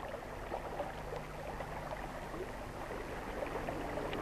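Water running and trickling, a cartoon sound effect for water leaking from a wooden bath tub, getting a little louder near the end.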